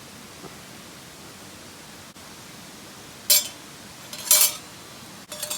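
Two short clinks of cooking gear about a second apart, over a steady hiss of background noise, with a few small clicks near the end.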